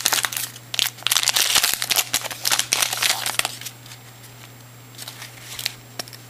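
Foil wrapper of a trading-card pack crinkling and crackling as it is torn open and pulled off, for about the first three and a half seconds. After that it goes quieter, with a few faint ticks and rustles of the cards being handled.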